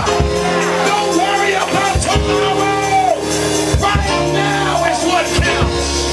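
Church band music with held bass notes, drum hits and a voice rising and falling over it.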